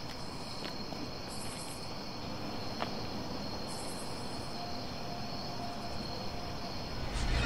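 Crickets chirping steadily in a night-time ambience, with a few faint clicks. A low rumble swells in at the very end.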